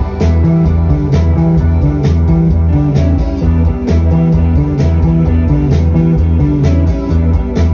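Live rock band playing loud: electric guitar and bass guitar over a drum kit keeping a steady beat, with a repeating bass figure and evenly spaced cymbal strokes.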